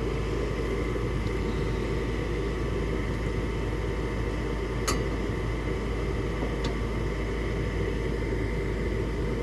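Gas furnace's draft inducer fan running with a steady whir during the ignition sequence, while the igniter heats and before the burners light. A single sharp click about five seconds in.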